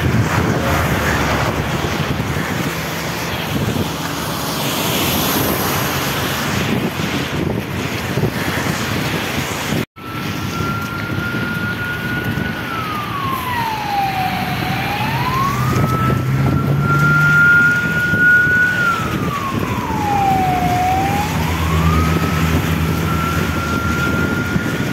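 Wind buffeting the phone microphone while running. After a cut about ten seconds in, an emergency-vehicle siren wails slowly: a held high tone that twice sweeps down and climbs back up.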